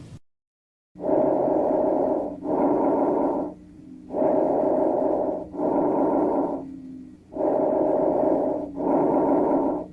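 Abnormal, musical breath sounds from a stethoscope recording. After a second of silence come three breaths, each a pitched, droning inhale and exhale of about equal length with short pauses between.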